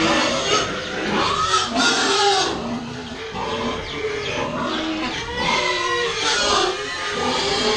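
Pigs in farrowing pens calling: many overlapping grunts and squeals that rise and fall in pitch, without pause.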